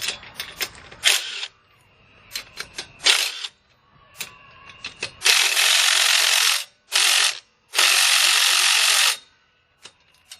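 Older 18-volt cordless impact driver hammering on a car lug nut in three bursts, a short one between two longer ones, after a few clicks of handling. The nut, tightened to the maximum, does not come off.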